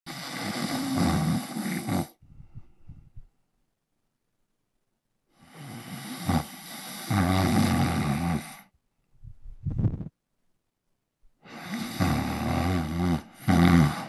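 A man snoring: three long snores, about five to six seconds apart, with shorter, softer breaths between them.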